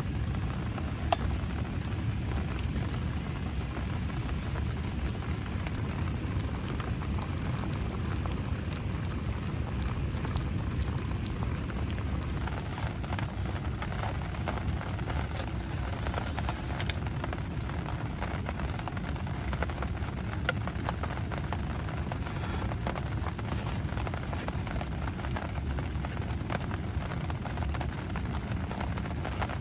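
Steady rain falling, with a dense scatter of small drop ticks and one sharper click about a second in.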